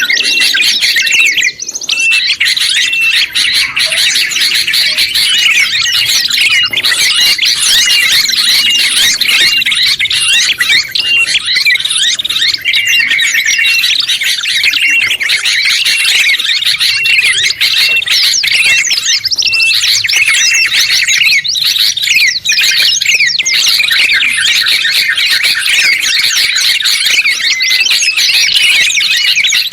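Loud, dense mix of overlapping songbird calls: yellow-vented bulbul (trucuk), red-headed prenjak, sooty-headed bulbul (kutilang) and white-eye (pleci) songs layered together. A short high note repeats about every half second under continuous chirps and trills.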